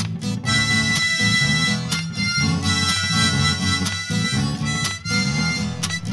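Background music: a harmonica playing held notes over strummed acoustic guitar, the harmonica coming in about half a second in.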